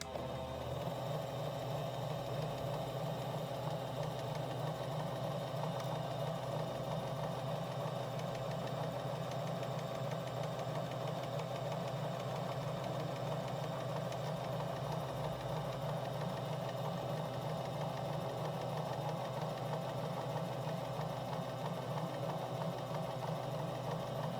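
JUKI HZL-28 household sewing machine running steadily at speed for a test run, with a fast, even mechanical clatter from the needle bar and horizontal rotary hook. It starts abruptly. The inner hook, its scratch just smoothed, stays seated while the hook turns.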